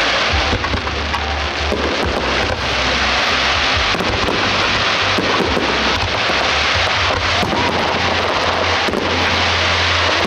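Fireworks display at full barrage: many shells bursting and crackling in quick succession, the bangs overlapping without a break.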